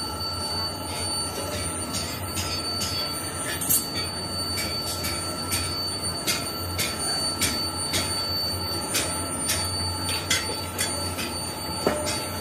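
Factory workshop noise: machinery running with a steady hum and a thin high whine, over which sharp metallic clinks and taps come irregularly, roughly once or twice a second.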